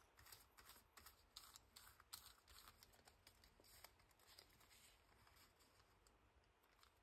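Faint, irregular small taps and scratchy strokes of a paintbrush working glue onto paper, with paper being handled and pressed down; they thin out near the end.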